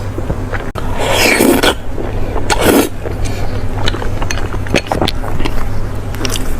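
Close-up eating sounds of a meal of chicken and naan: chewing and small clicks of food and utensils, with two louder noisy bursts about one and two and a half seconds in. A steady low hum runs underneath.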